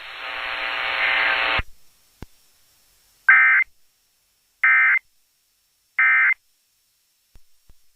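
A steady buzzing tone for about the first second and a half, then the Emergency Alert System end-of-message data burst sent three times: three short, identical screeching digital bursts about 1.3 seconds apart. They mark the end of the alert broadcast.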